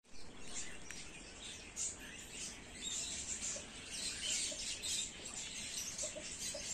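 Several birds chirping, with many short, high calls overlapping.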